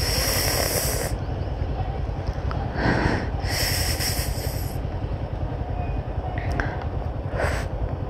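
Motorcycle engine running at low speed in stop-and-go traffic on a wet street, a steady low rumble. Two bursts of hissing noise come over it, one at the start and one about three and a half seconds in.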